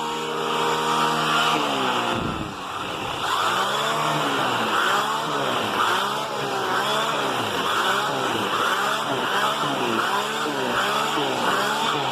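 Vacuum cleaner running with a turbo brush attachment worked back and forth over a bed sheet. The motor's pitch holds steady at first, sags about two seconds in, then dips and recovers in a regular rhythm, roughly once every 0.7 seconds, with each stroke of the nozzle.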